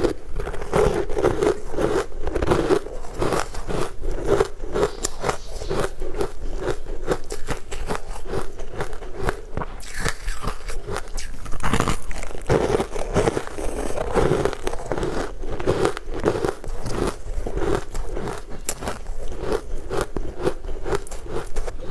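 Close-miked biting and chewing of refrozen ice chunks dusted with matcha powder: a continuous run of crisp cracks and crunches as the ice breaks between the teeth.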